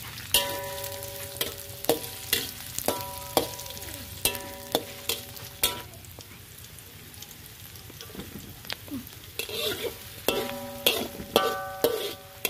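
Sliced shallots and garlic sizzling in hot oil in a large metal wok while a metal spatula stirs them, the spatula knocking against the wok again and again so that it rings briefly. The knocks come thick and fast, thin out for a few seconds in the middle, then pick up again near the end.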